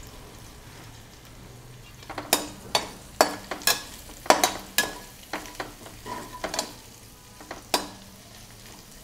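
Sliced onions frying in a pan with a soft, steady sizzle. From about two seconds in, a utensil stirs them, knocking and scraping against the pan about twice a second, then stops near the end.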